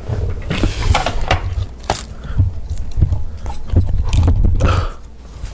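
Close-miked chewing and mouth noises: irregular clicks and knocks over a low rumble, which stops about five seconds in.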